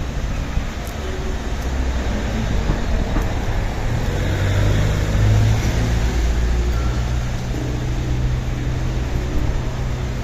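A motor vehicle's engine running with a steady low hum that swells a little around the middle, over a rumble of noise.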